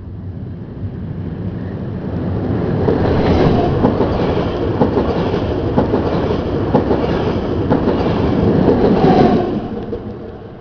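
SBB passenger train passing close by at track level, its wheels clacking over the rail joints. It grows louder over the first three seconds, stays loud for about six, then fades quickly near the end.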